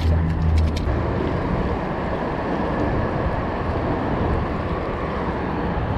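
Steady outdoor rushing noise of wind and distant traffic, with a low hum that stops about a second in.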